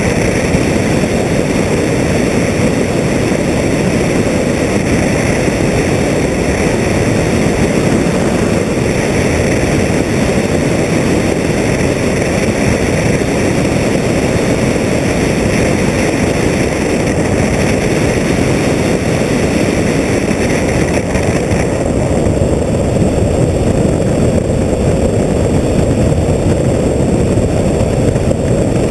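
Comet FK12 biplane's engine and propeller running steadily in flight, heard through heavy wind rush over a camera mounted on the wing strut.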